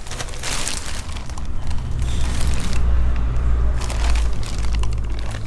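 Clear plastic bag crinkling and rustling as it is handled and pulled back, with a low rumble that is loudest about halfway through.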